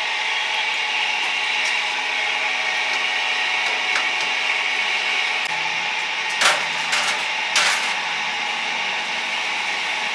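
Steady hiss of a charcoal chicken-grilling stall, with three sharp knocks or clatters of tools about six and a half to eight seconds in.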